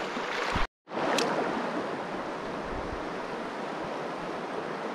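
Steady rush of a shallow, fast-flowing river, broken by a brief gap of total silence just under a second in.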